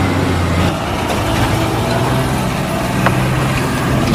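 Truck engine sound running steadily, a low hum that steps up slightly in pitch about two-thirds of a second in.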